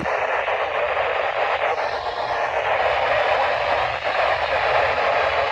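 Steady static hiss from a weather radio receiver on a weak, noisy signal, with no clear voice coming through.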